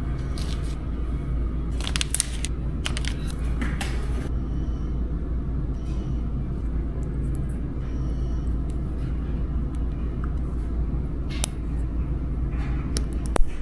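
Steady low rumble with scattered light clicks and taps, the sharpest a single knock near the end.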